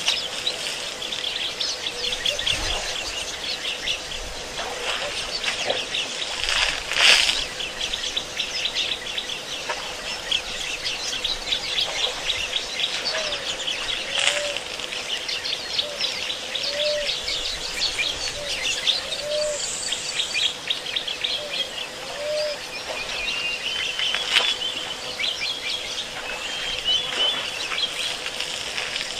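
A chorus of birds chirping and twittering continuously, with a lower, short call repeating about every second and a half through the middle. Two brief louder noises break in, about seven seconds in and near the end.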